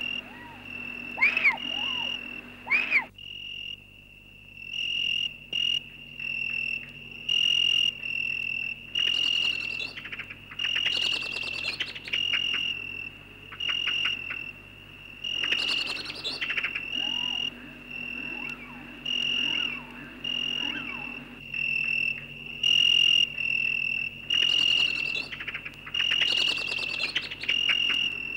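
Insect chirping: a high chirp repeated about once a second, broken at times by bursts of rapid clicking. There are a few swooping, warbling calls in the first three seconds.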